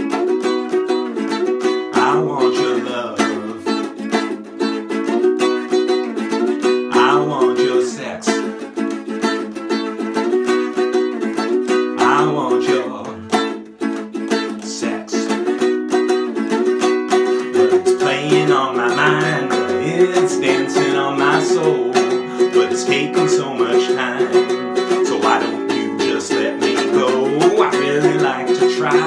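Acoustic ukulele strummed in a steady rhythm, chords ringing throughout, briefly quieter about halfway through.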